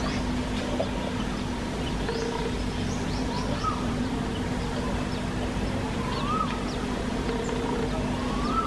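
Outdoor ambience of birds calling now and then with short arching whistles and quick high chirps, over a steady low rumble and hum.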